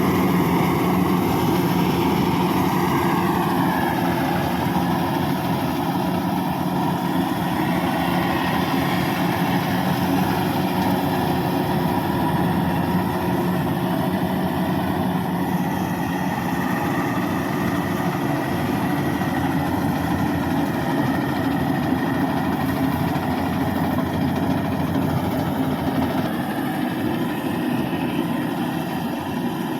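Engine of a Bimo 102 rice combine harvester running steadily, its note dipping slightly a few seconds in.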